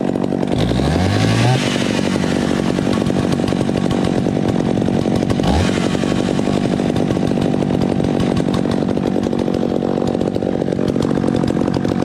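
McCulloch 610 two-stroke chainsaw with its muffler removed, running steadily and loud.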